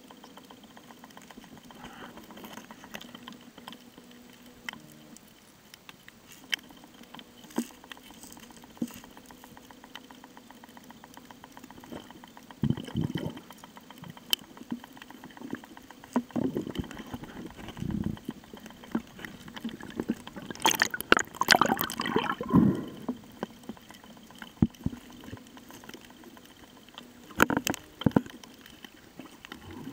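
Underwater sound picked up by a snorkeler's camera: water gurgling and sloshing around it, with scattered clicks. Bursts of bubbling and splashing come from about halfway through, loudest a little after two-thirds of the way.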